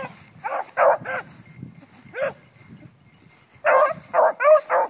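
Beagles baying in short, yelping bays. A few come spaced out at first, then a quick run of four near the end: hounds giving tongue on a scent line in the brush.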